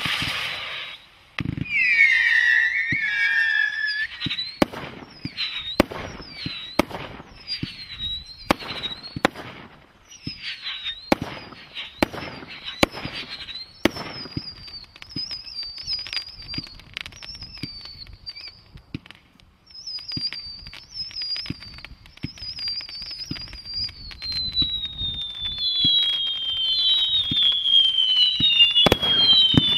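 Fireworks International Panther Attack barrage cake firing: a rapid run of bangs and crackles, with wavering whistles from about two seconds in and long falling whistles over the last few seconds.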